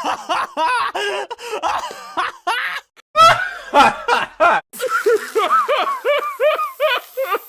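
A string of cartoon character laughs played back to back, each clip cut off abruptly before the next begins; over the second half one laugh goes in evenly spaced 'ha' pulses, about three a second.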